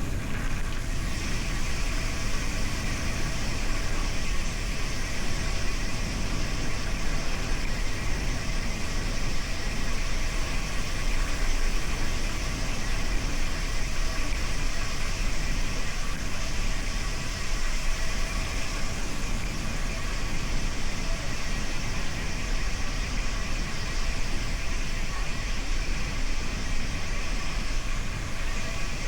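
Steady wind and riding noise on a bike-mounted camera's microphone during a gravel bike ride: a constant low rumble with hiss above, unbroken throughout.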